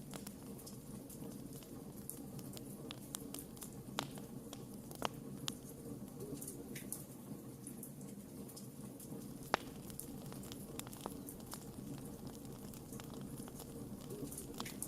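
Wood fire burning in a fireplace: a steady low rush of flames with irregular sharp crackles and pops from the logs, the loudest pop a little past halfway through.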